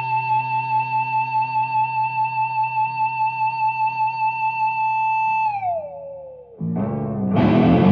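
Electric guitar, a Warmoth superstrat, holding one long sustained note with steady wavering vibrato; about five and a half seconds in the pitch slides down and dies away. A new note follows, swelling into a loud distorted chord near the end.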